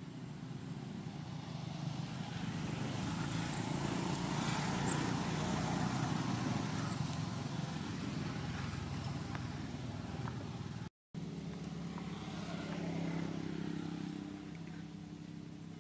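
A motor vehicle passing by, its rumble swelling to a peak about five seconds in and fading away. After a brief dropout, a second engine hum rises and fades near the end.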